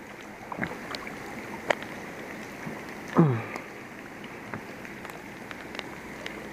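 Steady rush of river water, with scattered light clicks and one short squeak falling in pitch about three seconds in.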